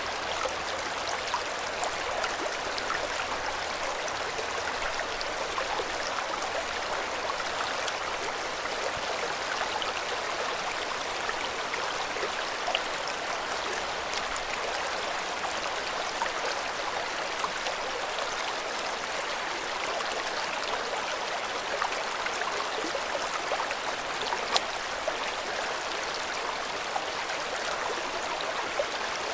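River water flowing steadily over stones, a continuous rushing splash with small droplet ticks throughout.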